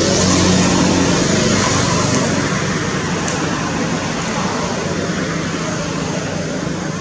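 Steady motor-vehicle noise: a loud, even rush with a low engine hum underneath that slowly fades.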